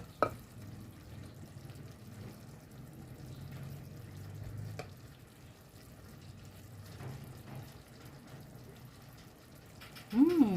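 Faint, steady sizzle from a pan of chicken steak in sauce, with a small utensil click at the start and another about five seconds in. Near the end a short hummed voice rises and falls in pitch.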